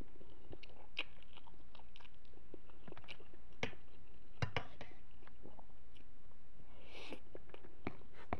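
A person chewing a mouthful of noodles, with many short, irregular mouth clicks.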